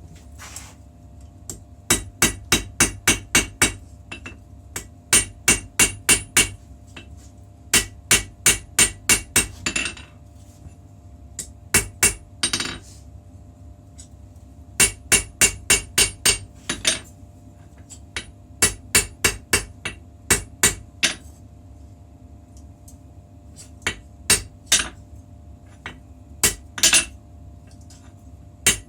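Hammer striking steel in bursts of quick blows, about four a second, each blow with a bright metallic ring; the pauses between bursts are a few seconds long.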